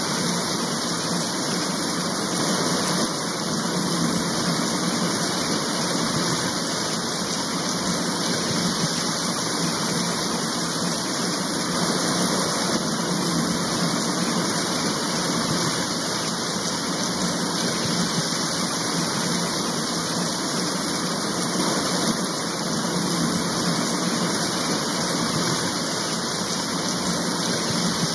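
Steady rain, an even, unbroken hiss that holds the same level throughout.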